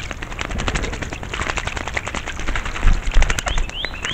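A bird bathing in a shallow bird bath, beating its wings in the water: a rapid, dense run of small splashes. Near the end come a few short rising bird chirps.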